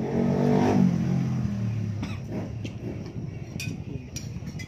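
A motor vehicle's engine passing by, its hum swelling and then falling in pitch as it fades over the first two seconds. A few light clinks of cutlery on plates follow near the end.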